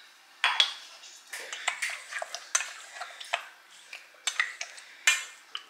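Pork spare ribs being mixed by hand in a stainless steel mixing bowl: an irregular string of clinks and knocks against the metal bowl.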